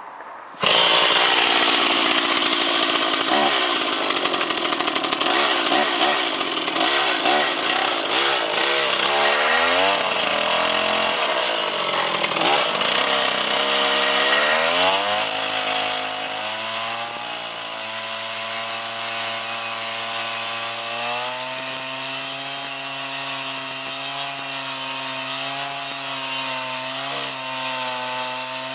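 Petrol chainsaw engine driving an angle-grinder attachment whose abrasive disc cuts metal, a loud grinding with the engine's pitch wavering and dipping under load. About halfway through the cutting stops and the engine runs on at a steady, slightly higher pitch.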